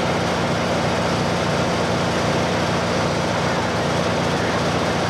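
A steady engine drone with a constant low hum, unchanging in level.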